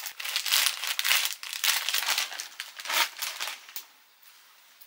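Crinkly packaging being handled, crinkling and rustling unevenly, then stopping about three and a half seconds in.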